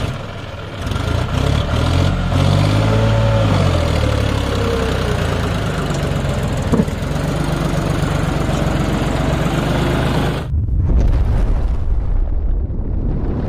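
John Deere 5050D tractor's three-cylinder diesel working hard under a heavy load, pulling a fully loaded soil trolley out of soft mud, its pitch rising and falling. There is a single sharp knock about seven seconds in, and near the end the sound turns to a deep low rumble.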